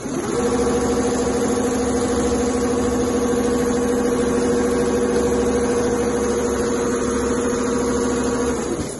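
Two-head CNC leather pattern-sewing machine running: a steady mechanical hum with two strong held tones, starting just after the beginning and dying away shortly before the end.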